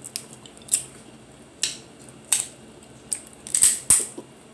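Mouth sounds of someone eating crab meat close to the microphone: chewing and wet lip smacks, heard as about seven sharp, separate clicks, the loudest two close together near the end.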